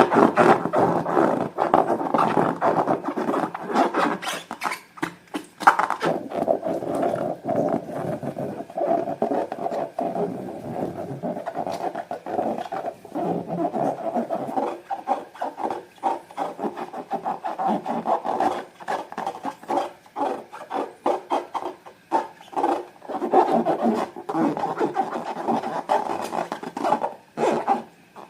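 Hands working rubbery balloons and slime: continuous rubbery squeaking and rubbing with many small sticky clicks.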